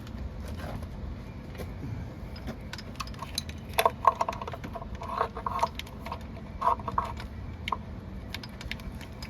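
Metal wrenches and engine parts clinking and clanking during work on an N14 Cummins diesel, with scattered short clicks and three louder ringing clanks about four, five and a half and seven seconds in. A steady low rumble runs underneath.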